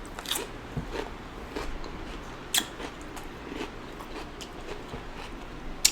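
Close-up chewing and wet mouth sounds of someone eating saucy seafood, with scattered short smacks and clicks, the sharpest just before the end.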